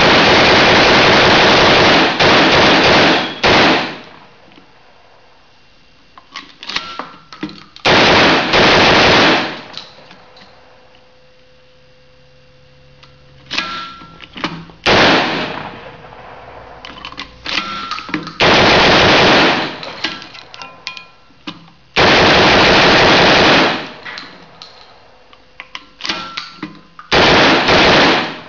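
Homebuilt belt-fed shotshell machine gun firing loud fully automatic bursts, about six bursts of one to two seconds each with pauses between. Short metallic clicks and rattles of the action and ammunition belt come between the bursts.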